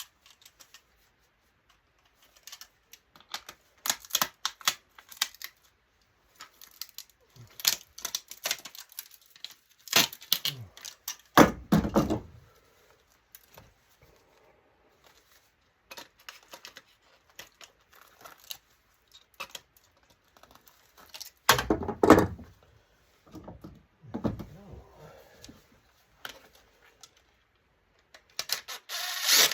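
Hand tools and small metal electronic parts clicking and clattering in irregular bunches as components are pulled off circuit boards for scrap. There are a few heavier clattering thunks about a third of the way in, past the middle, and just before the end.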